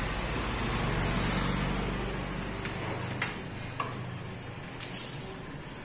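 A motor vehicle engine running at a steady low hum that fades away about halfway through, followed by a few short, sharp clicks and taps from handling the motorcycle's handlebar switch gear.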